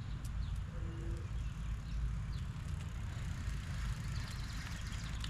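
E-bike riding along at about 10 miles an hour: wind buffeting the microphone with a steady low rumble, over a hiss of tyre and air noise, with a few faint bird chirps.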